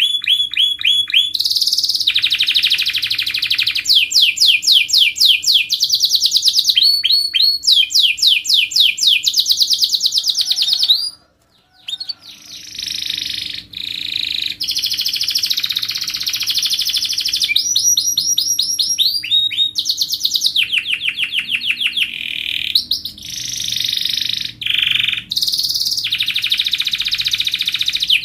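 Domestic canary singing a long run of fast rolled trills, one trill type after another in quick succession, with a brief break about eleven seconds in.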